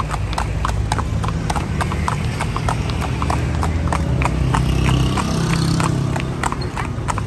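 A carriage horse's hooves clip-clopping on a paved street at a quick, even trot, several strikes a second, over a low steady rumble.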